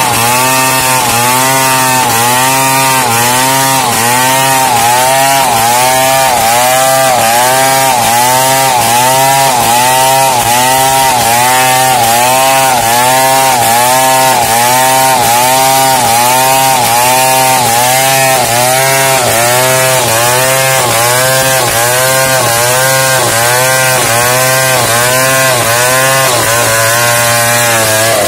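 Large two-stroke chainsaw at full throttle, ripping a wooden board lengthwise along the grain. The engine note rises and falls in a regular rhythm about once a second as the bar works through the cut.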